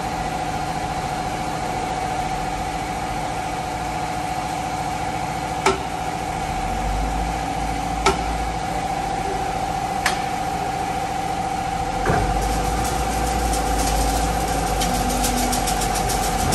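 Mobile concrete batching plant running: a steady whine and hum from its conveyor and feed machinery, with three sharp metal knocks a couple of seconds apart. About two-thirds of the way through, a heavier rumble with a fast rattle comes in.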